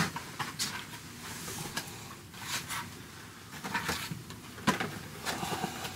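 Scattered light clicks, taps and rustles of boxed toys and plastic figures being handled on a shelf.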